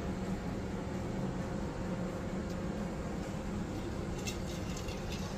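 Steady low hum of indoor machinery and air handling, with a few faint short high clinks or chimes near the end.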